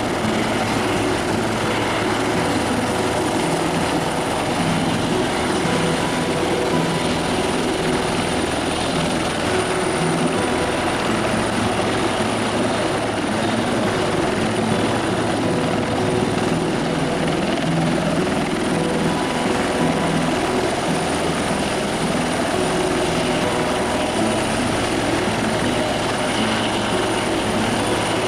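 Helicopter running steadily and loudly: a constant high whine over a low pulsing rumble, with no change in pitch or level.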